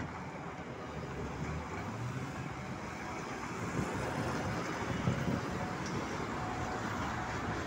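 Street traffic noise as a trolleybus pulls in to the stop at low speed, with a steady low hum under the road noise.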